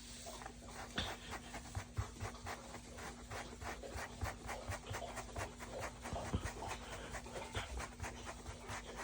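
A dog lapping water from a bowl, a quick, steady run of wet laps at about five a second.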